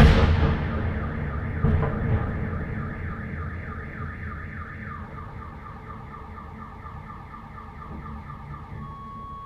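An S-300 missile explosion: a sudden loud blast with a long rumbling decay and a second, smaller thud about two seconds in. Car alarms set off by the blast sound in a fast repeating chirp, changing their pattern about five seconds in.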